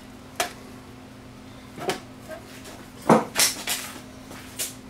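Clicks and knocks of plastic and metal parts being handled on a TV/VCR combination set's opened chassis: a few scattered taps, with the loudest cluster of knocks just past the middle.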